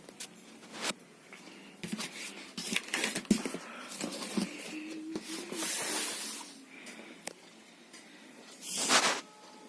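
Cardboard packaging being handled by hand: rustling and scraping with scattered knocks and clicks as a flood light unit is taken out of its box. There are louder rustles around six seconds in and again near the end.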